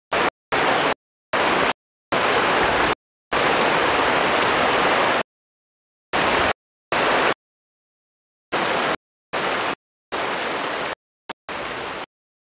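About a dozen bursts of loud, steady hissing noise that cut in and out abruptly, with dead silence between them, the longest lasting about two seconds near the middle: a corrupted audio track dropping in and out.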